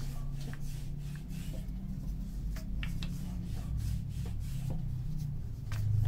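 Wooden rolling pin rolled back and forth over a disc of dough on a granite counter: a low steady rubbing with scattered light clicks.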